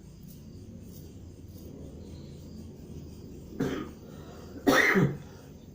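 A man coughing: a short cough about three and a half seconds in, then a louder one near the end. It is the phlegmy cough of a week's standing that is being treated.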